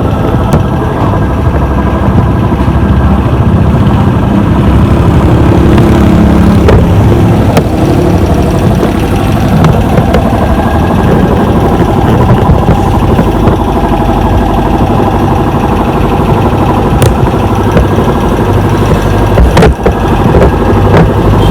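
A motor running steadily, with a few sharp clicks or knocks over it.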